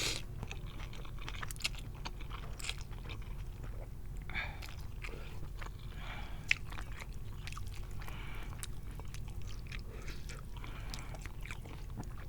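Close-miked chewing of spicy instant noodle soup, with wet mouth clicks and smacks throughout. One sharp click stands out about six and a half seconds in.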